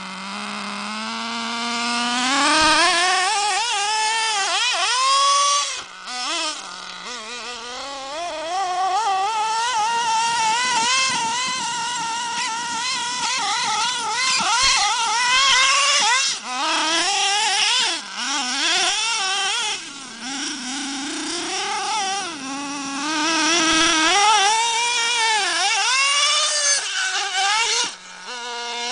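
Hobao ST RC truggy's nitro engine, running on 16% nitro fuel, revving hard as the car is driven. Its whine climbs steeply in the first few seconds, then rises and falls over and over with the throttle, dropping off briefly a couple of times.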